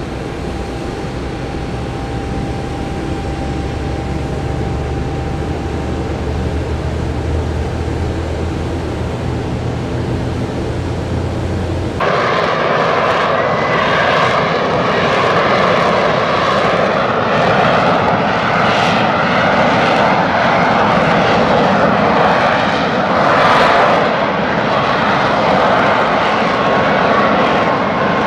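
A jet airliner's underwing turbofan running on the ground, a low rumble with a thin whine. About twelve seconds in it cuts abruptly to the louder, rougher jet noise of a Lockheed Martin F-35B Lightning II hovering.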